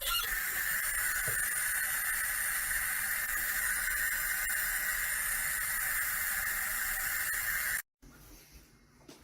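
A steady hiss that runs unbroken for about eight seconds and then cuts off suddenly.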